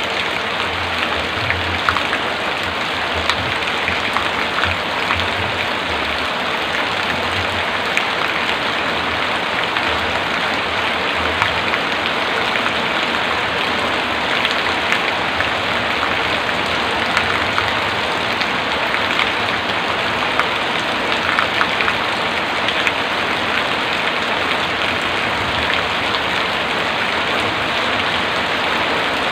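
Heavy rain falling steadily, with scattered drops ticking on a surface.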